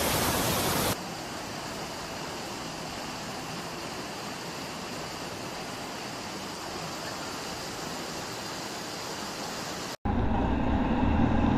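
Floodwater rushing: the swollen river's torrent runs loud and even for about the first second, then cuts to a quieter steady rush of water. After a brief drop-out near the end, a louder low rumble begins.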